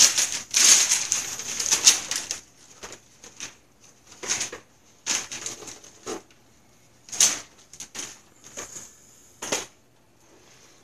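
Wrapping paper being torn off a present and crinkled: a long run of tearing over the first couple of seconds, then a handful of short rustles.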